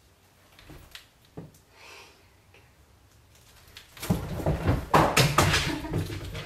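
A large dog leaping off a sofa after a thrown toy and scrambling away: soft rustling at first, then from about four seconds in a loud run of thumps and scuffling paws.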